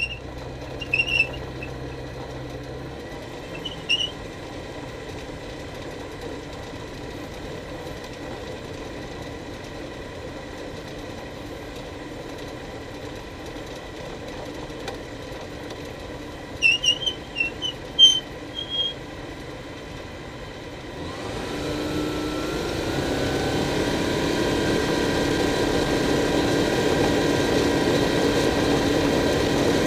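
Light aircraft engine running steadily at low power, heard from inside the open cockpit, with a few short, high squeaks near the start and again mid-way. About two-thirds of the way through, the throttle is opened: the engine speeds up and stays much louder.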